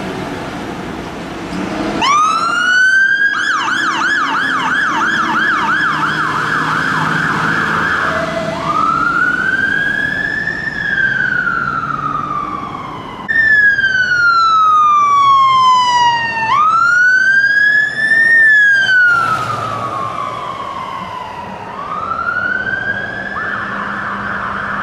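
London Fire Brigade fire engine sirens. A diesel engine rumbles at the start. About two seconds in, a siren rises and breaks into a fast yelp, then changes to slow wails that rise and fall. A fast yelp returns near the end.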